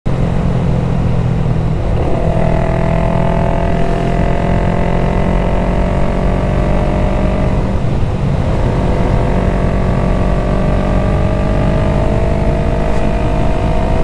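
2020 Yamaha MT-03's 321 cc parallel-twin engine running under way. Its note breaks briefly about two seconds in and again about eight seconds in, as at gear changes, then climbs slowly in pitch as the bike gathers speed.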